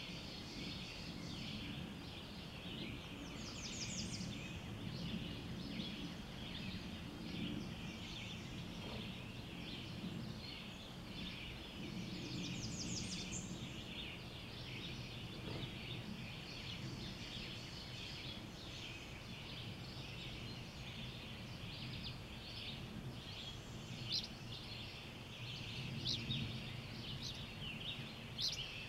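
Dawn chorus of many birds singing at once, a dense overlapping chatter, with a couple of brief high trills and a few louder sharp chirps near the end. A low steady rumble runs underneath.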